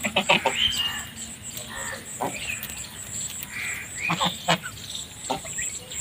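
Flock of domestic geese calling while they graze: short honks and calls, several in quick succession at the start, then scattered ones about two, four and five seconds in.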